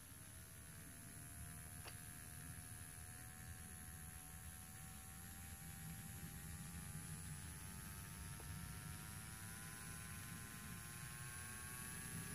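Electric nail drill (e-file) handpiece motor running faintly, its whine rising slowly and steadily in pitch as the speed is turned up from the lowest setting.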